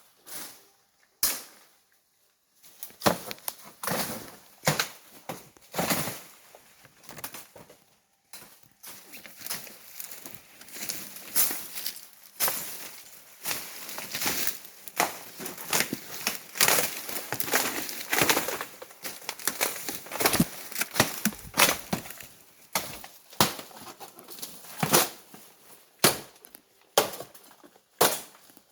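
Irregular crunching and rustling of dry leaves and brush underfoot, with sharp cracks of twigs and a brief pause about 2 s in and again about 8 s in.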